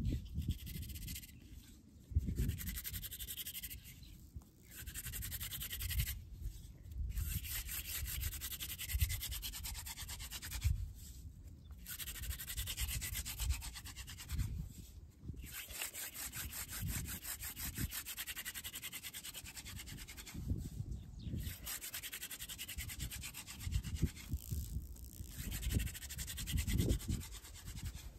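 Hand-drill friction fire: a wooden spindle spun rapidly back and forth between the palms, its tip grinding into a wooden hearth board with a steady dry rubbing hiss. The rubbing comes in bouts of two to five seconds, broken by brief pauses.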